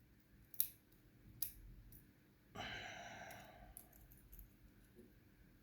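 A long sigh, breathed out for about a second starting about two and a half seconds in. Before it come two small sharp clicks of small lock parts being handled, and faint ticks follow it.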